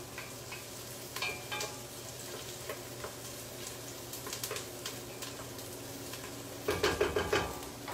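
Onions sizzling in a frying pan while being stirred, the utensil clicking and scraping against the pan, with a burst of louder clatter near the end.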